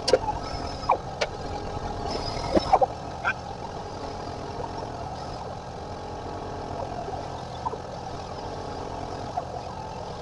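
Several sharp metallic clicks and clinks in the first few seconds, the loudest pair a little over two and a half seconds in, over a steady mechanical hum.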